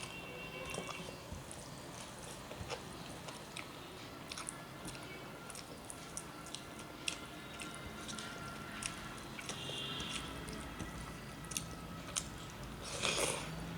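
Close-up chewing and eating sounds: a person eating rice and vegetable dishes, with scattered wet mouth clicks and smacks and a louder, noisy mouth sound near the end.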